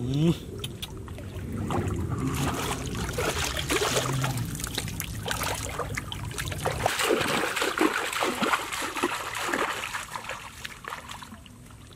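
Water splashing and sloshing in muddy shallow river water as a man gropes with his hands among submerged roots and then wades through, with many irregular splashes. A short rising sound right at the start is the loudest moment, and a low rumble underlies the first half.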